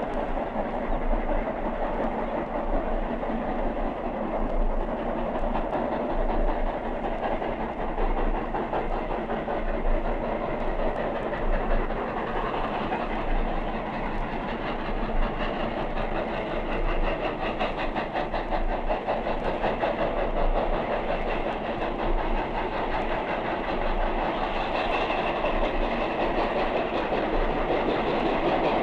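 Steam locomotive working at speed with its train, a steady dense rush with a fast, even beat of wheels and rail clicks.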